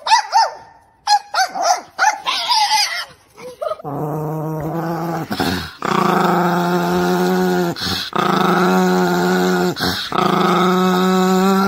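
Small dogs yapping in quick, high yips, then a small dog growling in long, steady stretches broken by short pauses for breath.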